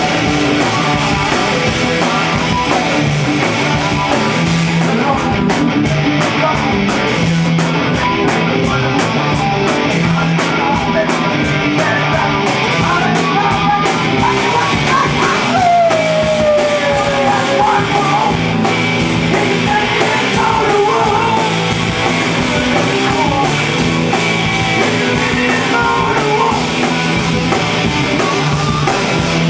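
Rock band playing live at full volume: electric guitars, bass guitar and a drum kit, with one note sliding down in pitch about halfway through.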